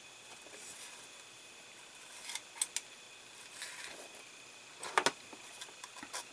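Small model parts and a seatbelt strap being handled on a workbench: soft rustling, then scattered light clicks and taps, the sharpest pair about five seconds in.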